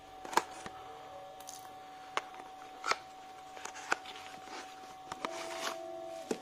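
Cardboard toy box being opened by hand: a few sharp clicks and taps from the flaps and inner packaging, with rustling of card, paper and plastic as the bubble-wrapped contents come out.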